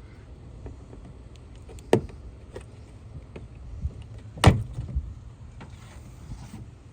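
Two sharp plastic snaps, the second louder, with lighter clicks between: trim clips popping loose as a plastic panel is pried off.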